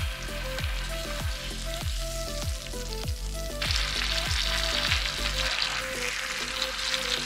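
Beef steak sizzling in a frying pan. The hiss grows noticeably louder about halfway through.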